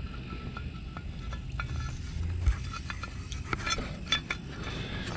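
Light metallic clinks and taps of a steel drum-brake shoe and its handbrake lever being handled and fitted together, a few scattered small knocks over a few seconds.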